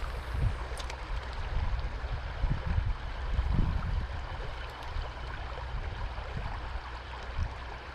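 Small trout stream flowing, a steady rush of water, with irregular low rumbles and thumps under it.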